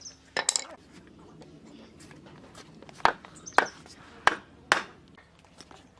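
Sharp knocks of a tool striking wood: a quick pair about half a second in, then four more roughly half a second apart in the middle of the stretch.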